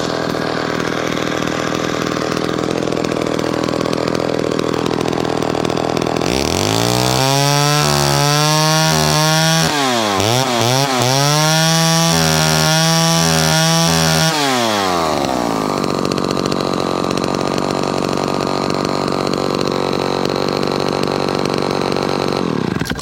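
1970 Homelite Super XL two-stroke chainsaw running on a freshly rebuilt carburettor. It idles, is revved up to high speed about six seconds in, drops briefly and revs again, then settles back to idle.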